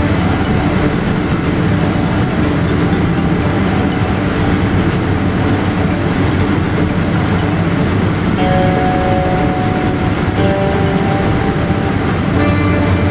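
Boeing 787-8 cabin noise on approach: a steady roar of engine and airflow heard from a window seat beside the engine. A faint steady whine joins for a couple of seconds about eight seconds in.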